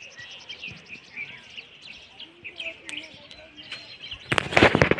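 Many small birds chirping and twittering in quick short calls. About four seconds in, a loud rustling burst of noise on the microphone covers them for most of a second.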